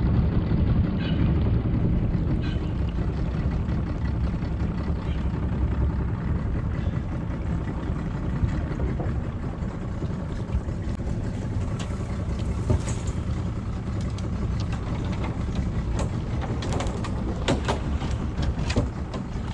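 Low, steady rumble of a small boat's motor running at idle. Near the end come a few light knocks and water splashes as a crayfish hoop net is hauled up out of the river.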